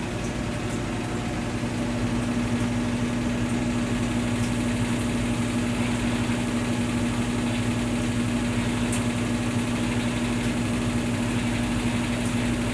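Brastemp Tira Manchas Pro 12 kg top-loading washing machine running its spin cycle with a heavy load of blankets: a steady motor hum with a constant low tone, getting slightly louder about two seconds in.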